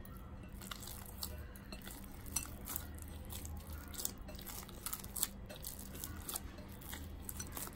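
Hand kneading soft nan dough in a glass bowl: faint sticky squishing with many small, scattered clicks against the glass.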